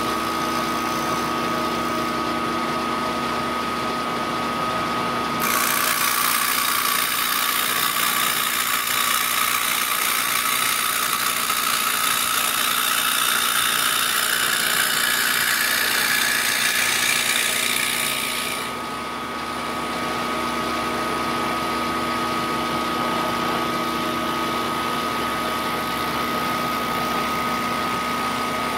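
Milling machine spindle running with a steady whine. From about five seconds in until about nineteen seconds in, the end mill cuts into a plastic block, adding a loud hissing cutting noise as chips are thrown off; then the spindle runs on without cutting.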